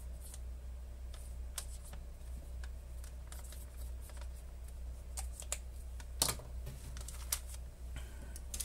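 Metallized anti-static bag crinkling and rustling under the hands while a pen writes a label on it, in scattered small clicks and crackles, with two sharper ticks about six and seven seconds in. A low steady hum runs underneath.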